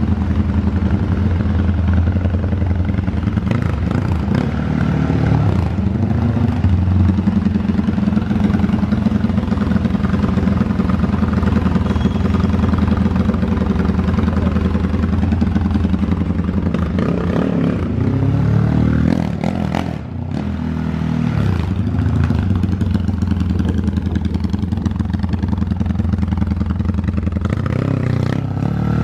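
Engine of a Honda CG Today motorcycle built up to 370 cc, running steadily and revved up and down a few times, with a short drop in loudness about two-thirds of the way through.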